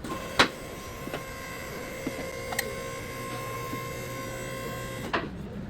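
Small electric motor running at a steady pitch for about five seconds, then stopping abruptly, with a sharp knock just after it starts.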